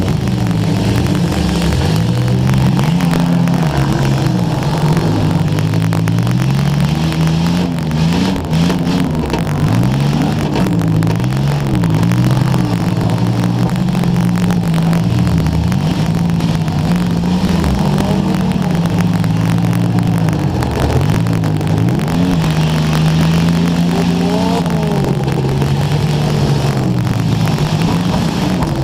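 Demolition derby car engines revving, their pitch rising and falling again and again, with crackling static from a wet camera microphone.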